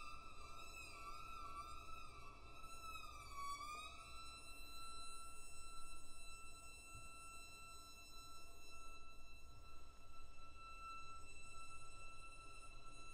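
Violin playing a quiet, high sustained note with a wide, wavering vibrato that dips in a slow slide down and back up. About four seconds in it settles into a steady held tone.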